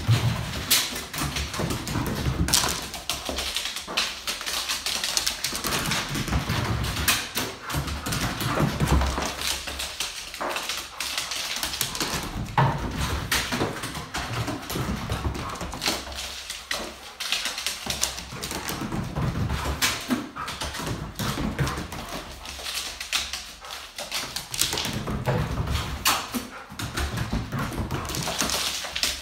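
A dog running zoomies on a hardwood floor: claws clicking and paws scrabbling and thudding in rapid, irregular bursts.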